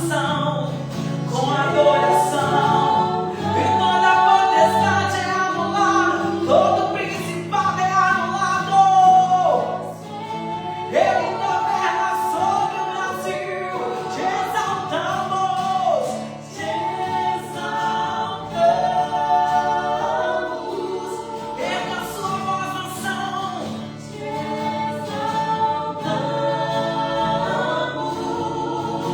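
Gospel worship song: several voices singing together over instrumental backing with sustained low notes.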